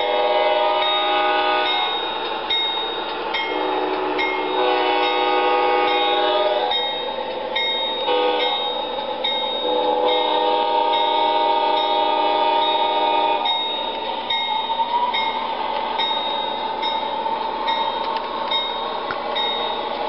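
The speaker of an MTH O-gauge Amtrak Genesis diesel model sounding its recorded horn in the grade-crossing pattern, long, long, short, long, with the first blast already under way as it begins. A regular high dinging runs underneath.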